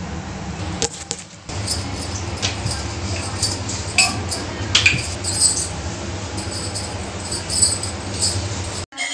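Steel kitchen utensils and tongs clinking and tapping now and then while rotis are made, over a steady low hum.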